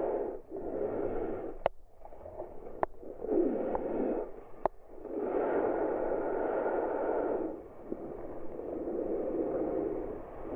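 Muffled rush of whitewater and foam around a kayak, coming in surges of a second or two, with a few sharp clicks.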